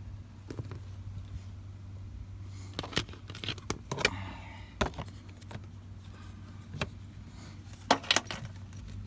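Handling noise at close range: a scattering of sharp clicks and small rattles, with a cluster a few seconds in and a pair near the end, over a steady low hum.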